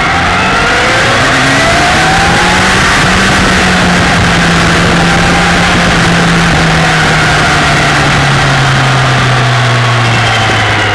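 Kawasaki ZX-10R's inline-four engine pulling on the road. Its pitch climbs over the first few seconds as the bike accelerates, then holds steady and sinks slowly near the end as the throttle eases. Heavy wind rush over the bike-mounted microphone runs underneath.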